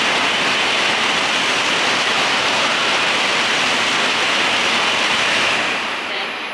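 N700-series Shinkansen train running alongside the platform, a loud steady rush of air and wheel noise that begins to fade about five and a half seconds in.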